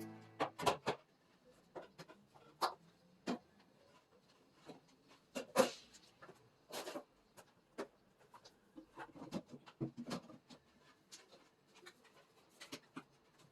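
Quiet handling sounds: scattered light clicks, taps and knocks of objects being moved and set down, a slightly longer scrape or rustle about halfway through.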